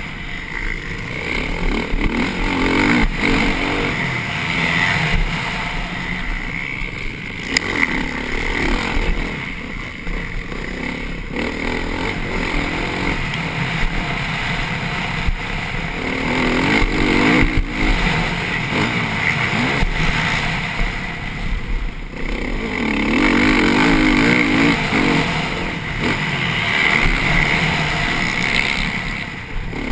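Motocross bike engine at race pace, heard close up from the bike itself, revving up and dropping off again and again as the rider accelerates and shifts, with a steady rush of noise and a few short knocks.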